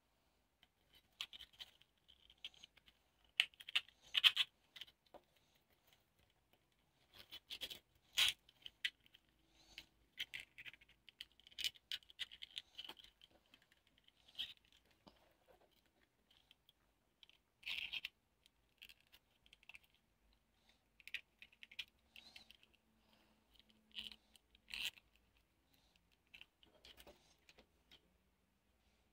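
Leather strap pieces and small metal hardware being handled and fitted together by hand: irregular light scratching and rubbing with scattered clicks, a few of them sharper.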